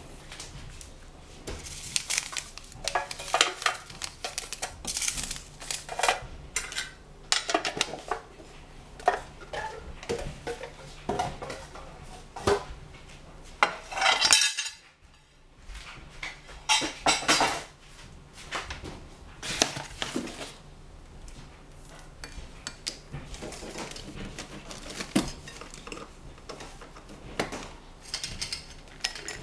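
Kitchen utensils and dishes clattering and clinking: spoons, a glass bowl and other kitchenware being picked up and set down on a tiled counter in irregular knocks, with a brief break about halfway.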